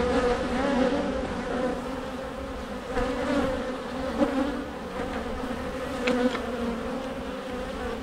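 Honey bees buzzing in large numbers around an opened hive: a steady hum that swells now and then as bees fly close past the microphone.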